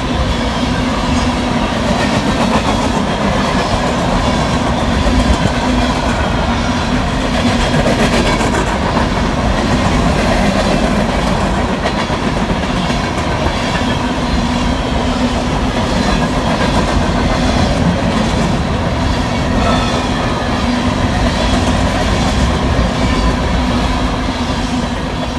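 Freight train cars rolling past at close range, a steady rumble with wheels clattering over the rails, fading slightly near the end.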